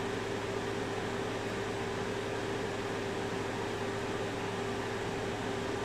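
Steady room noise: an even hiss with one unchanging hum, like a fan or air conditioner running, and no other sound standing out.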